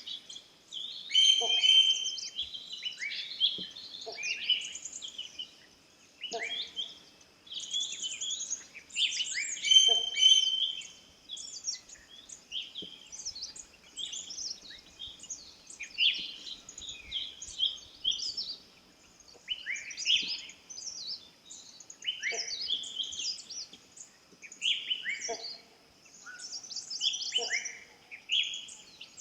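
Several wild forest birds calling and chirping over one another in a dense, overlapping chorus of short sweeping notes and trills, with a faint steady high-pitched tone running underneath. The loudest calls come about a second and a half in and again about ten seconds in.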